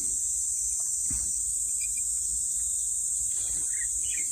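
Steady, unbroken high-pitched buzz of an insect chorus, with a few faint short chirps about two and four seconds in.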